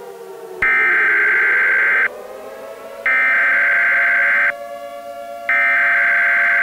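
Emergency Alert System SAME digital header: three identical bursts of rapid data warbling, each about one and a half seconds long with about a second between them. A steady electronic droning tone sounds underneath.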